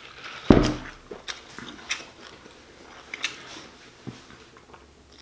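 Close-miked eating of a shrimp po' boy sandwich: biting and chewing, with short scattered wet clicks and crunches. There is one loud thump about half a second in.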